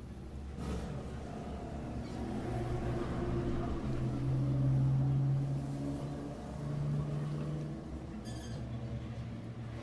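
An engine running steadily in the background, a low hum that swells louder around the middle and then eases.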